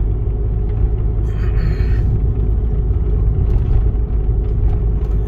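Steady low rumble of a 2009 Skoda Superb cruising, heard from inside the cabin: engine and tyre noise. A brief hiss comes about a second and a half in.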